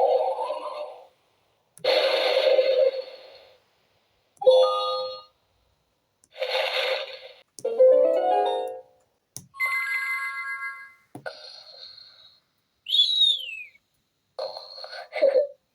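A string of short electronic sound effects from the speaker of a LeapFrog Scout and Violet 100 Words talking book in Fun Sounds mode, one effect for each picture touched. There are about eight, with brief silent gaps between them: some noisy swishes, some short tuneful chimes, a rising slide about eight seconds in and a falling whistle near the end.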